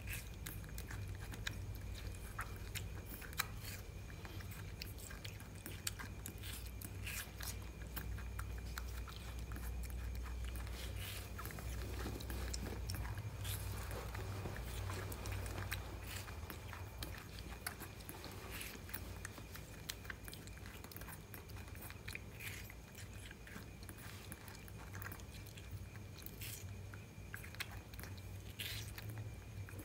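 Baby macaque biting and chewing a slice of watermelon: many small, irregular clicks and bites, over a steady low hum.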